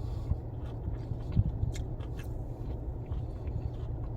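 A person chewing breaded fish strips, with small scattered mouth clicks over a steady low rumble.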